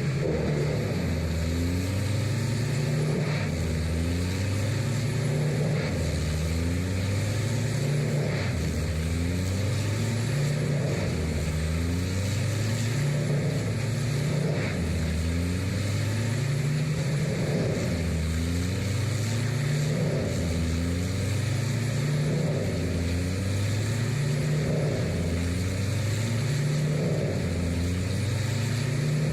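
Heavy diesel-powered machinery running steadily, its low drone stepping up in pitch and dropping back in a regular cycle about every two and a half seconds.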